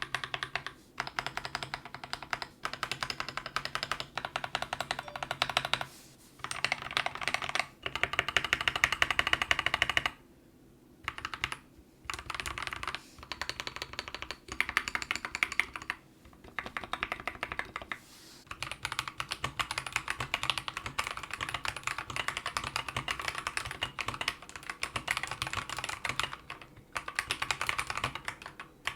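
Mechanical keyboard typing on Akko CS Jelly Pink linear switches: runs of rapid keystrokes broken by short pauses. For about the first two thirds the switches are lubed; after a pause they are stock, and the typing runs on almost without a break.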